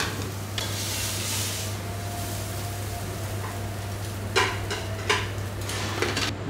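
Egg omelette sizzling on a hot flat iron tawa, with a metal spatula scraping and striking the griddle several times in the second half, over a steady low hum.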